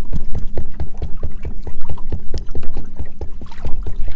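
Wind-driven chop slapping rapidly and irregularly against a small fishing boat's hull, with a steady low hum underneath.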